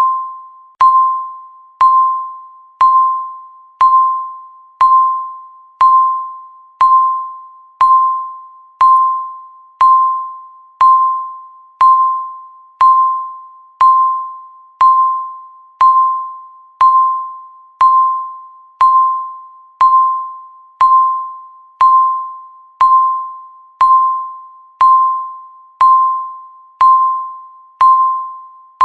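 Countdown timer beeping once a second, each beep marking one second ticked off the count. Each beep is a single electronic tone that starts sharply and fades away before the next one.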